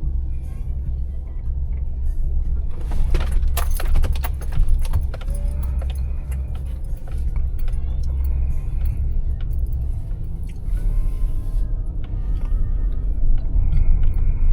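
Steady low rumble of a car, with a burst of jangling and clicking keys about three to five seconds in.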